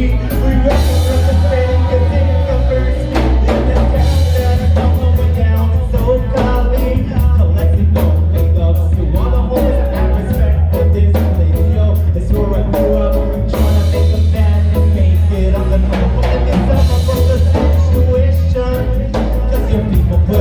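A live band playing a rock song with a ska and reggae feel: bass guitar, drum kit and a singing voice.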